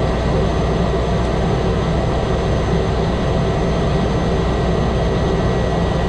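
Cessna 208 Caravan's turboprop engine and propeller running steadily, heard from inside the cockpit: a loud, even drone with a thin steady whine above it.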